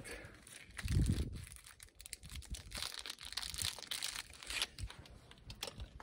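Wind buffeting the microphone: a low rumbling gust about a second in, then crackling, rustling noise.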